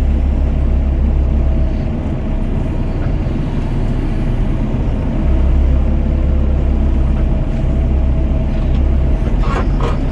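Doosan DX55 mini excavator's diesel engine running with a continuous low rumble, its level dropping and rising again as the machine works the bucket.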